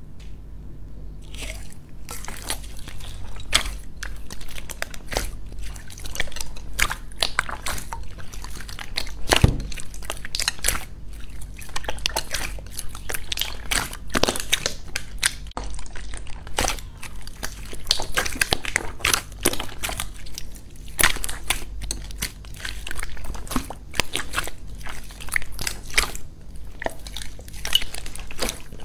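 Hands squishing and kneading pink foam-bead slime (floam) in a clear bowl, making a dense, irregular run of sticky clicks, pops and crackles.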